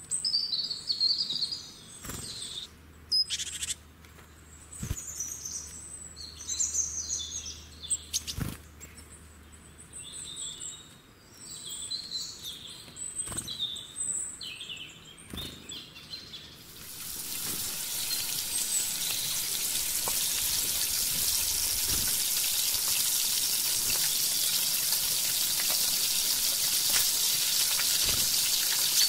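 Birds chirping and calling, with a few clicks, then a little over halfway through a steady sizzle sets in and builds: chicken pieces deep-frying in hot oil in a karahi.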